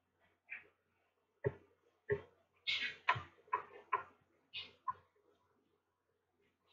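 Pen writing on paper: a run of short, irregular scratchy strokes that stop about five seconds in.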